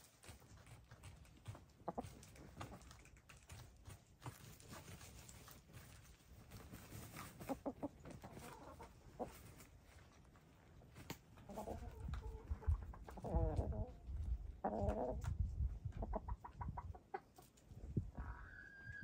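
Domestic hens dust bathing and making soft clucking calls, the contented sounds of hens at a dust bath, with scattered scratches of dirt. The calls grow louder and more frequent about two-thirds of the way through, and a higher drawn-out note comes near the end.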